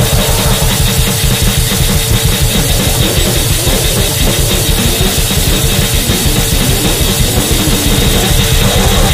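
Gore-noise / mincecore music: very fast, dense drumming under a loud, heavily distorted wall of noise, running steadily without a break.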